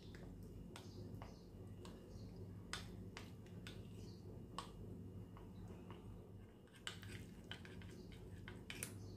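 Steel spoon stirring a thin rice-flour and water paste in a glass bowl: faint, irregular clicks of the spoon against the glass, coming quicker near the end.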